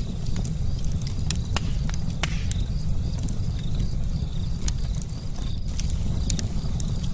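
Fire burning: a steady low rumble of flames with scattered sharp crackles and pops.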